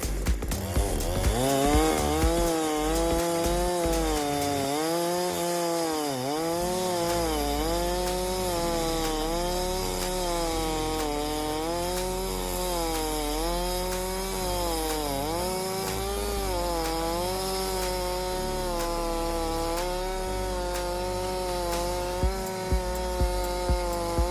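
Neotec 8105 105cc two-stroke chainsaw on an Alaskan mill, ripping a slab from a marri log. It revs up at the start, then runs at high revs. Its pitch sags and recovers about every second and a half as the long bar loads up in the cut, and keeping the revs up is hard work.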